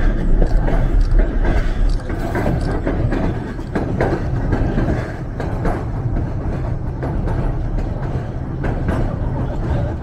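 Passenger train running along the track, heard from on board: a steady low rumble of wheels and cars, with scattered clicks and knocks.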